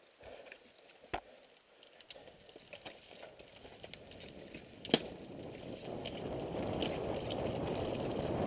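Mountain bike heard from a helmet-cam as it sets off down a dirt singletrack. A few sharp clicks come first, the loudest a single crack about five seconds in. Then tyre and wind rumble builds steadily as the bike picks up speed.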